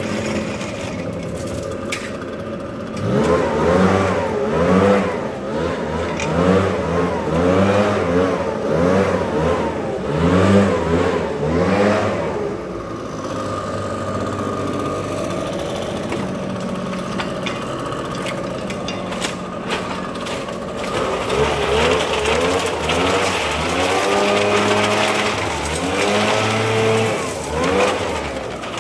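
Gas backpack leaf blower engine running, revved up and down over and over so its pitch rises and falls about once a second, with a steadier stretch in the middle.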